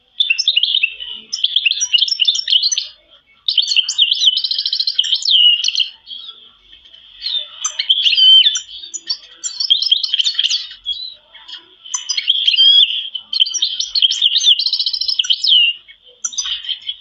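Domestic canaries singing: long, high-pitched warbling phrases with fast rolling trills, pausing briefly about three seconds in and again near the end.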